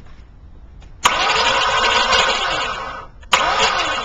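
1997 Chevrolet Malibu's V6 being cranked by its starter in two tries, about two seconds and then about a second, without catching. The engine will not start.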